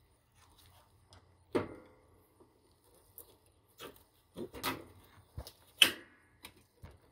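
Metal clinking and knocking as a hand tool and steel parts are worked into place on a Toro mower's transmission pivot arm: a handful of separate strikes with a short ring, two sharper ones about a second and a half in and near six seconds.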